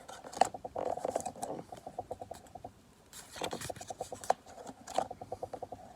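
Pokémon trading cards being handled and flicked through by hand: several runs of quick papery ticks, about ten a second, with a few sharper snaps between them.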